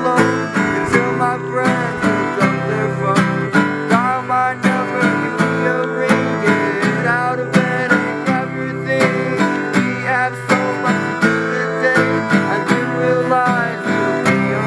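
Acoustic guitar, a black cutaway nylon-string model, strummed in a steady rhythm, with a man singing along to it.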